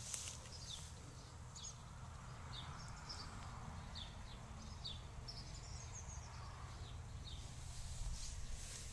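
Small birds chirping repeatedly in short, high notes over a low steady rumble, with a few rustles of grass near the start and end.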